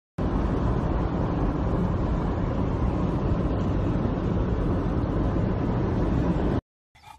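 Steady road and engine rumble heard inside a moving car's cabin, cutting off abruptly near the end.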